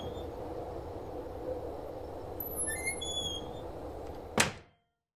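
Soft steady background ambience with two short bursts of high chirping about three seconds apart. A sharp click comes near the end, then the sound cuts off to silence.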